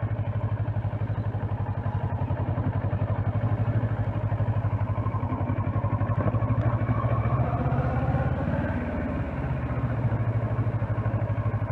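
Kawasaki Versys 650's parallel-twin engine running at low revs with a steady pulsing beat as the bike is ridden slowly on the clutch through tight turns. The revs rise and fall slightly a little past the middle.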